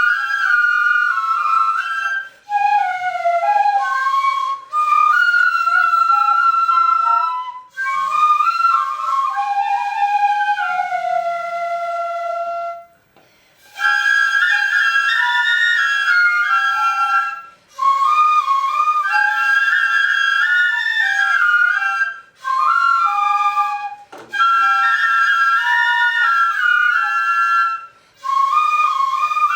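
Ensemble of hachihon-chōshi shinobue, Japanese bamboo transverse flutes, playing a slow melody in several parts at once, in phrases separated by short breath pauses, with a longer pause about halfway through.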